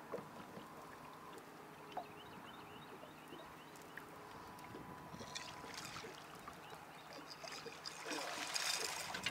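Water lapping around a small aluminium fishing boat while a hooked catfish is played on a rod, with splashing that grows louder over the last few seconds as the fish comes up to the boat.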